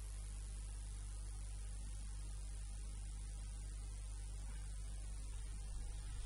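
Steady electrical mains hum with a low buzz and an even background hiss.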